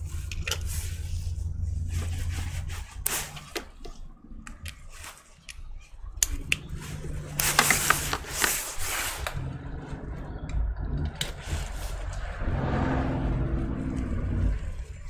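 Handling noise from work on a laptop: irregular clicks, taps and scrapes over a low steady hum, busiest about halfway through.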